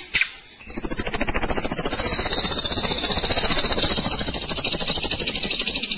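Ashy drongo singing a fast rolling trill (the 'roll tembak' prized by bird-keepers): a rapid, even rattle of high notes that starts about a second in and holds steady, after a couple of short calls.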